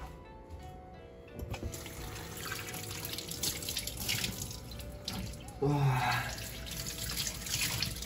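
Cold tap water running into a sink and splashing, over soft background music; a short louder sound about six seconds in.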